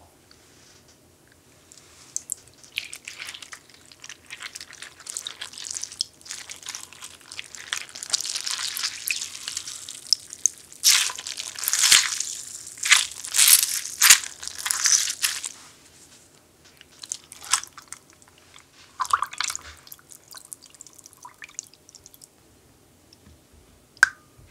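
Softened gelatine sheets being lifted and squeezed out over a glass bowl of soaking water: water splashing and dripping back into the bowl, heaviest about halfway through. A single sharp knock near the end.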